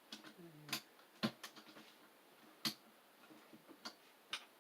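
Scattered clicks and taps from keycaps being fitted onto and pressed on a keyboard, a handful of sharp clicks spaced irregularly, the loudest about a second and a half apart, with a brief low murmur in the first second.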